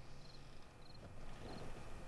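A cricket chirping steadily, a short chirp about every half second, over faint low background noise.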